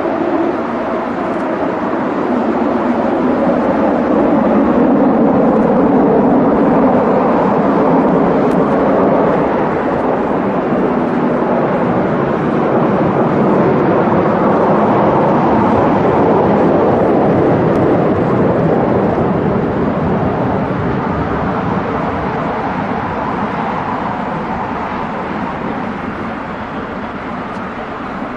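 Boeing 747-400 freighter's four jet engines at takeoff power as it departs. The engine noise swells over the first few seconds, holds steady, then fades slowly through the last third as the aircraft moves away.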